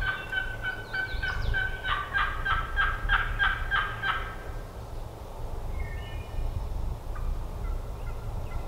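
Hen turkey yelping: a quick run of yelps in the first four seconds, then a few fainter yelps about six seconds in, a real hen answering.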